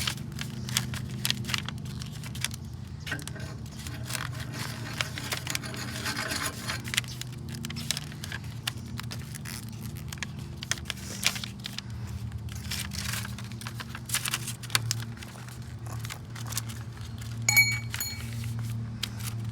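A sheet of paper being folded and creased by hand: irregular rustling and crinkling, over a steady low hum.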